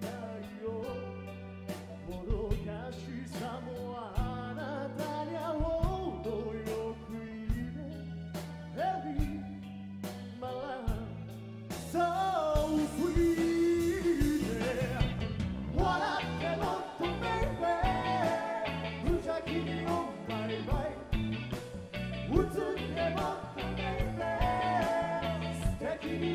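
Live rock band playing a song with a lead vocalist singing over electric guitar, bass, drums and keyboard. The band gets louder and fuller about twelve seconds in.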